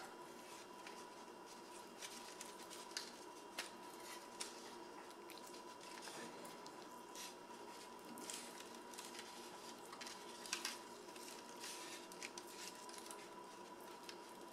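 Faint, scattered soft crackles and squishes of fingers peeling the skin off a boiled, refrigerated sweet potato, which comes away easily, over crinkling aluminium foil. A faint steady tone runs underneath.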